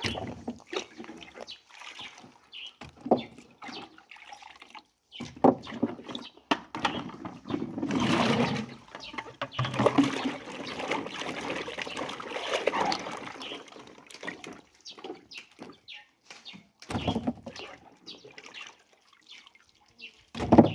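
Water splashing and sloshing as peeled cassava roots are washed by hand in a bucket of water, with irregular drips and knocks of roots against the container, busiest in the middle.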